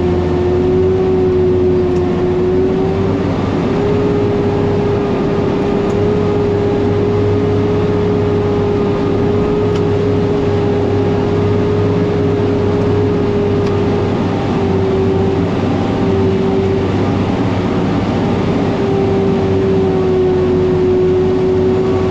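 Dump truck's diesel engine running steadily under load, with a strong steady whine over it, while the raised bed and open tailgate spread a load of rock.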